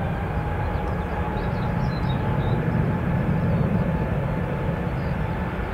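Airbus A350's Rolls-Royce Trent XWB turbofan engines running at take-off power during the take-off roll: a steady deep rumble with a faint whine that rises slightly.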